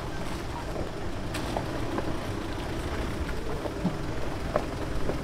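Off-road 4x4 vehicle moving slowly over a rough trail: a steady low engine and road rumble with a few light knocks and clicks.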